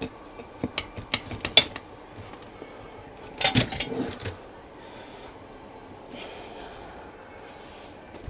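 Manual tyre changer and its bar being worked on a motorcycle wheel: a run of sharp metal clicks and knocks, then a louder scraping rub about three and a half seconds in, as the old tyre is worked off the rim.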